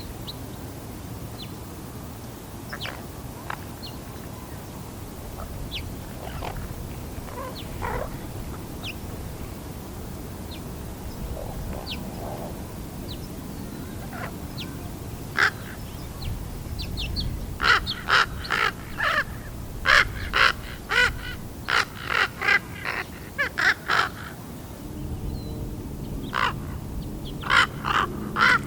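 Juvenile raven practising its calls: scattered soft calls at first, then a quick run of short calls, two or three a second, and a few more near the end. The uneven, varied calls are a young bird still learning how its voice box works.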